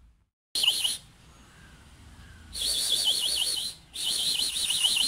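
A person's high, warbling, bird-like whistle, sounded three times: one short call, then two long ones. It is the call the household uses instead of a name to bring their cat for food.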